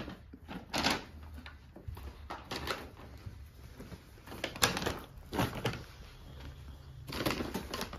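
Rustling of clothes and shopping-bag packaging being handled, in several short bursts.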